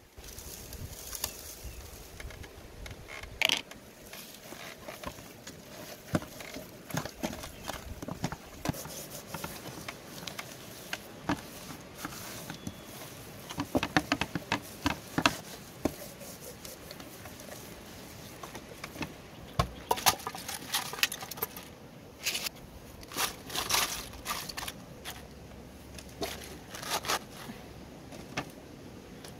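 Hands handling and rubbing a raw, seasoned whole chicken on a woven bamboo tray: scattered light clicks, taps and rustles, in small clusters, over a low steady background.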